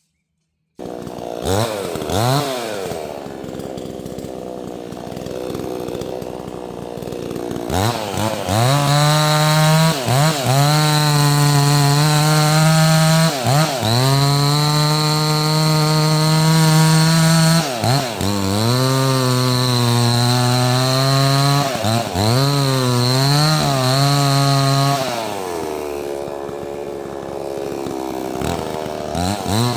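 Neotec 68cc two-stroke chainsaw idling with throttle blips, then held at high revs for about seventeen seconds while cutting a small maple. The pitch sags and recovers several times as the chain bites. It drops back to idle and revs up again near the end.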